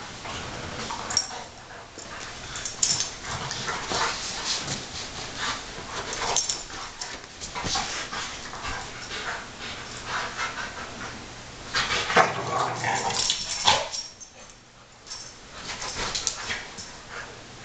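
Two pit bull-type dogs play-fighting over a ball, an irregular run of dog noises and scuffling that is loudest about twelve to fourteen seconds in and eases briefly just after.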